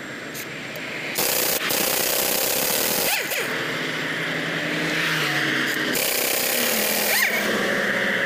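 Pneumatic impact wrench running on a truck's wheel nuts, a loud rushing air-tool noise that starts about a second in and runs on with a few brief breaks.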